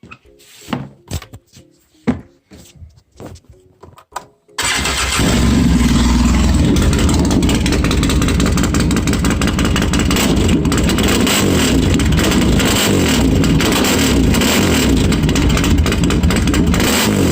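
Polaris Sportsman 800 ATV engine starting up: a few scattered clicks and knocks, then about four and a half seconds in the engine fires and runs loud and steady.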